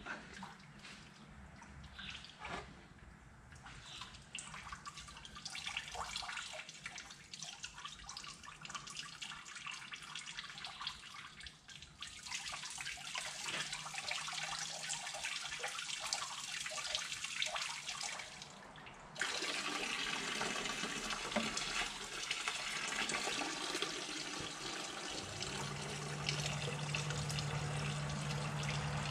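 Radiator coolant pouring out of a disconnected hose into a bucket, a steady splashing flow with some clicks of hands and tools on the fittings early on. The flow grows stronger part way through and suddenly becomes louder about two-thirds of the way in, and a low hum joins near the end.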